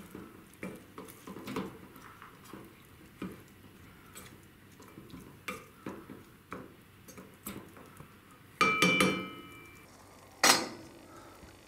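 A wooden spoon scrapes and knocks against a stainless steel pot while minced beef is stirred. Later comes a loud ringing metal clank, and near the end a stainless steel lid is set down on the pot with a sharp clang.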